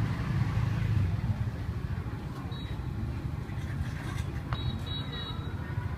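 Low, steady rumble of street traffic, a little louder in the first second.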